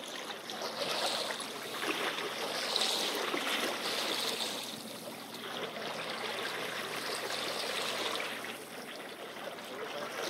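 Water gurgling and splashing along the hull of a small boat, coming in uneven surges.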